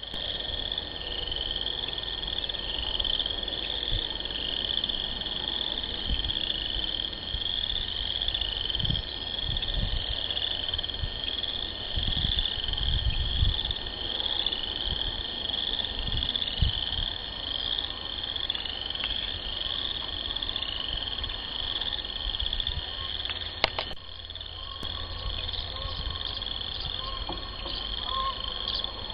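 A dense chorus of spring frogs calling together, a steady wall of repeated rising trills, with a few low rumbles underneath in the first half.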